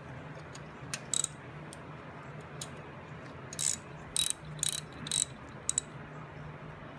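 Ratchet wrench clicking in short bursts as rocker box bolts are turned down.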